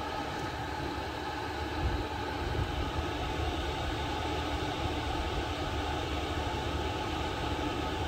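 VEVOR 8 kW diesel air heater running hot, its blower fan and burner making a steady rush of air.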